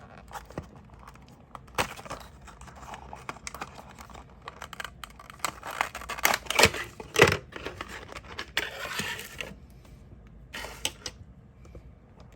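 Small plastic and cardboard packaging being handled: crinkling and rustling with scattered sharp clicks and taps. The busiest stretch, with several loud clicks, comes about six to seven seconds in. A short rustle follows, and a last burst comes near eleven seconds.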